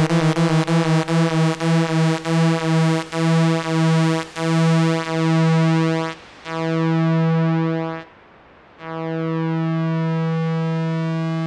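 Moog Mother-32 analog synthesizer sounding one low note that pulses on and off in a rhythm that slows, from several pulses a second down to about one a second, as the LFO rate knob is turned down. About six seconds in the tone turns duller. After a brief dip it holds as a steady drone.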